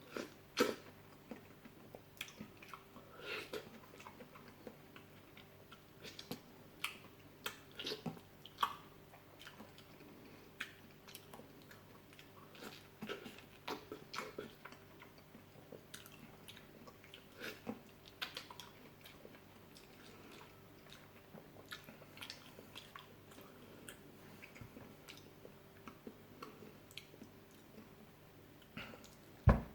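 Close-up chewing and biting of fresh fruit: irregular wet smacks and crunches. A faint steady hum lies underneath, and a sharp knock, the loudest sound, comes near the end.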